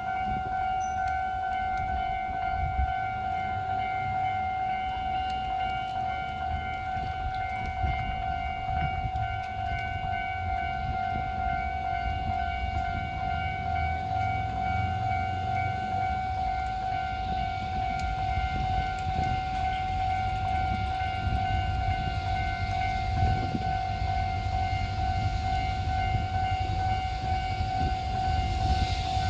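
Railway level-crossing warning alarm sounding continuously as one steady ringing tone with overtones, over a low rumble that swells near the end.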